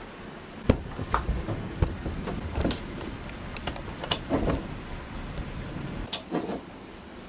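Nearby thunder breaking about a second after a lightning flash: a series of sharp, crackling cracks over a low rumble, the first crack the loudest, with a second burst of cracks near the end. Steady rain hiss underneath.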